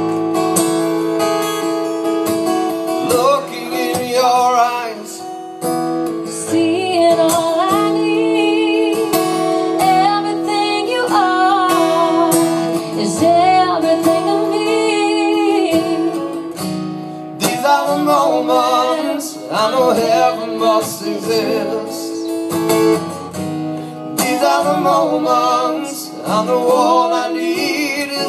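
Two acoustic guitars strummed while a woman sings over them, her voice wavering with vibrato on held notes.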